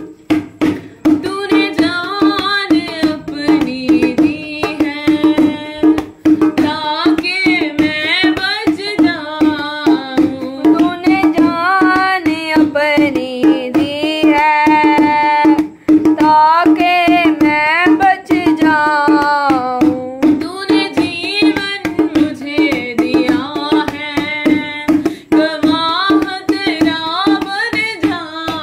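An Urdu-Hindi Christian worship song: a melodic voice singing over quick hand-drum percussion and a steady held low note.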